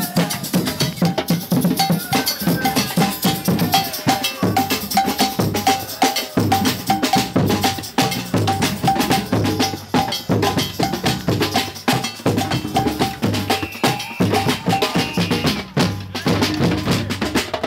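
Percussion-heavy music: drums with a short, high, bell-like tone struck on a steady beat about three times a second.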